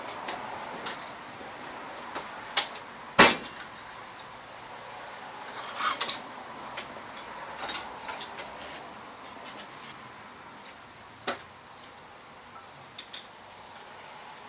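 Scattered clicks and knocks of hand tools and small carburetor parts being handled, with one sharp knock about three seconds in and a brief clatter around six seconds, over a steady faint hiss.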